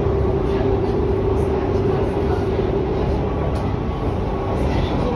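Berlin U-Bahn train running between stations, heard from inside the car: a steady rumble of wheels on track, with a steady drive tone that fades about halfway through and higher tones coming in near the end.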